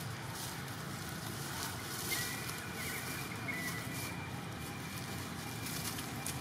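Steady low outdoor background rumble, with brief rustles of dry leaves as baby monkeys wrestle on the leaf-littered ground, and a faint short high squeak about two seconds in.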